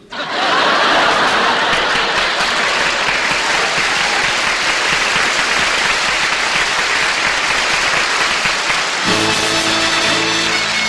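Studio audience applause, an even, sustained clatter of clapping, followed about nine seconds in by band music starting up with steady held notes.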